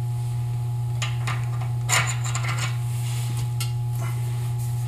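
Light metallic clinks and taps as a tapered roller wheel bearing is slid over the axle spindle into a full-floating hub, the loudest about two seconds in, over a steady low hum.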